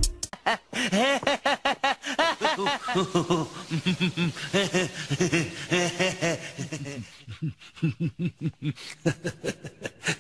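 A cartoon character's voice laughing in rapid, repeated bursts, about five a second.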